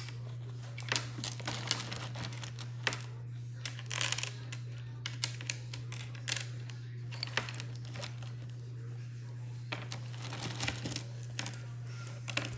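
Wooden Scrabble tiles clicking and clattering as they are handled, in irregular light clicks with a few short rustles, over a steady low electrical hum.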